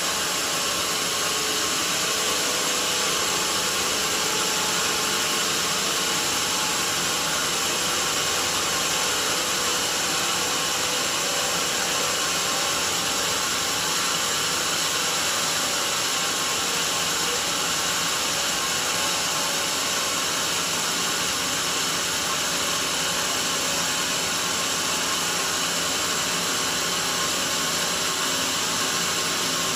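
Band sawmill running with a steady hiss, its thin band blade sawing lengthwise along a mahogany log.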